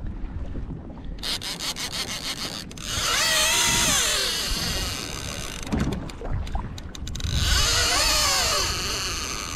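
Conventional fishing reel's drag screaming as a hooked fish takes line in two long runs: a loud whine that wavers down and up in pitch with the speed of the spool. Before the first run, a short stretch of rapid, even clicking.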